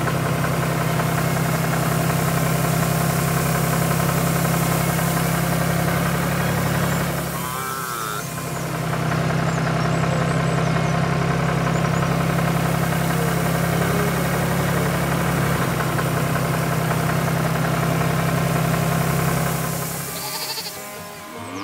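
Tractor engine sound effect running steadily with a regular low pulse, dipping briefly about seven seconds in and cutting off near the end.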